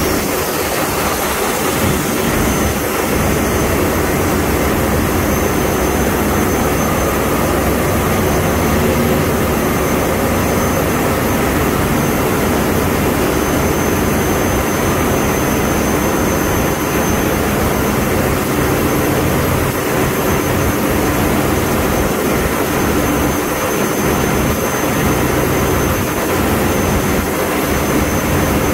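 Wärtsilä 6L20 six-cylinder four-stroke diesel auxiliary engine just started and running up to about 900 rpm: a loud, steady engine-room roar.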